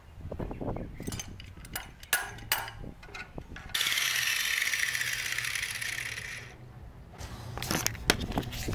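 Clanks and clicks of steel parts and tools being handled, then an angle grinder grinding steel for about three seconds before fading out, followed by knocks as the camera is picked up.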